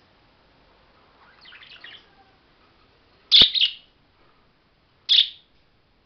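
Pet budgerigars chirping: a soft twittering about a second and a half in, then two short, loud chirps, one just past the middle and one near the end.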